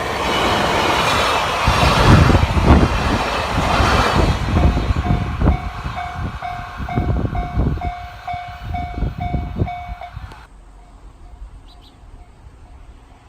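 A DE10 diesel-hauled train of old-type passenger coaches passing close by at a level crossing, with a heavy rumble at first and then wheels clacking over the rail joints. The crossing alarm bell dings a little over twice a second over the train. The sound drops away suddenly about ten seconds in.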